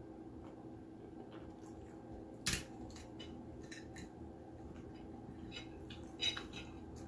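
Light clicks and knocks of tableware being handled at a meal, with two sharper knocks about two and a half seconds in and near the end, over a steady low room hum.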